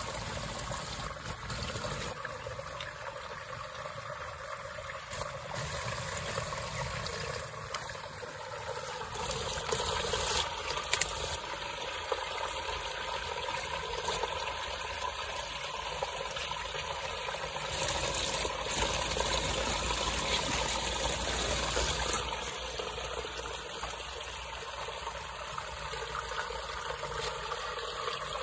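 Steady trickle of running water, like a small stream, with a few faint ticks about eleven seconds in.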